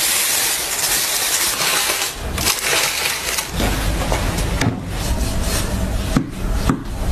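Aluminium foil crinkling as it is folded by hand, then the crunch and sharp knocks of a cleaver cutting crisp-skinned roast meat on a wooden board.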